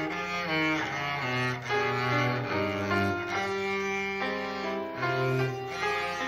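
Classical music on a cello: a bowed melody of held notes that change every half second or so.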